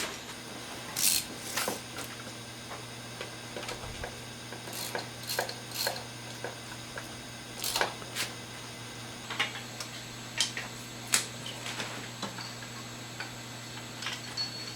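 Scattered light clicks and metallic taps of hand tools working the bolts on a motorcycle's front fork, at irregular intervals over a faint steady hum.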